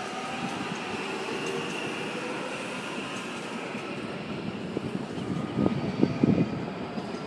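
Auckland Transport AM class electric multiple unit moving off, its electric motor whine dying away into a steady rumble. A few low thumps about two thirds of the way through are the loudest part.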